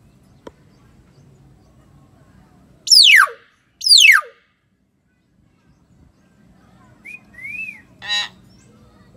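Hill myna giving two loud whistles about a second apart, each sliding steeply down in pitch. They are followed by a few soft chirps and a short harsh call near the end.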